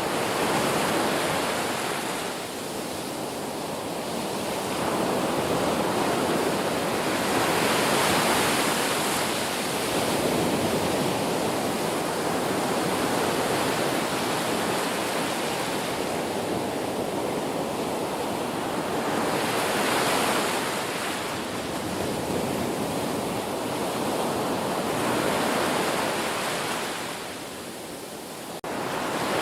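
Ocean waves breaking and washing on the shore, the rush of surf swelling and easing every few seconds. Near the end the sound dips and briefly cuts out.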